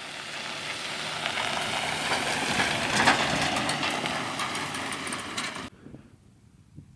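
A motor vehicle's engine and tyres running on a rough track. The noise grows louder to a peak about three seconds in, then cuts off abruptly about a second before the end.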